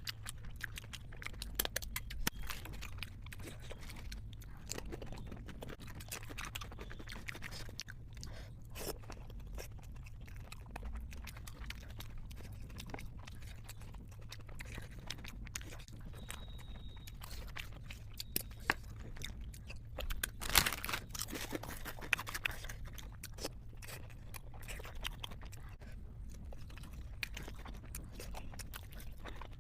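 Chewing and crunching while eating momos in spicy gravy with peanuts mixed in: many short crunchy clicks over a low steady hum, with a louder cluster of crunches about twenty seconds in.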